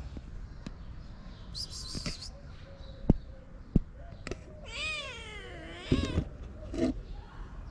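Black-and-white kitten meowing: one long call that rises and then falls, preceded by a couple of sharp taps.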